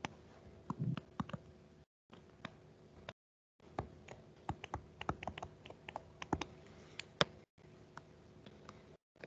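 Stylus clicking and tapping on a tablet screen during handwriting: a faint, irregular run of light clicks.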